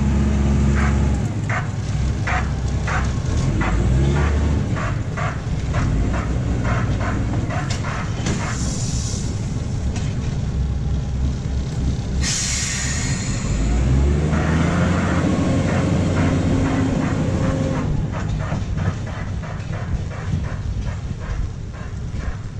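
Botchan train, a diesel-powered replica of a small steam locomotive with its coaches, pulling away over the tramway rails: the engine runs and then revs up, while the wheels click over rail joints in a quickening rhythm. Two bursts of hissing come about a third and halfway through.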